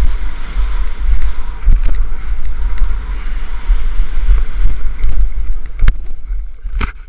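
Wind buffeting the microphone of a point-of-view camera on a skier descending fast through powder snow, a loud rumbling rush over the hiss of skis in snow. Two sharp knocks come near the end, then the rush drops away.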